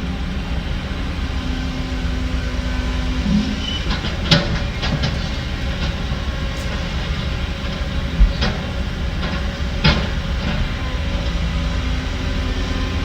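Heavy diesel earthmoving machinery running with a steady low rumble, with several sharp knocks, clustered around the middle and again near the end.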